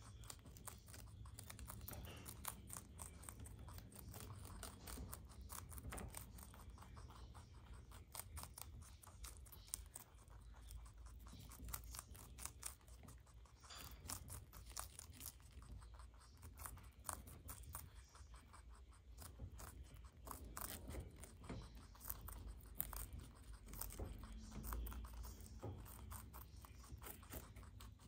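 Two baby rabbits nibbling leafy greens: faint, rapid, continuous crunching clicks of small teeth tearing and chewing the leaves.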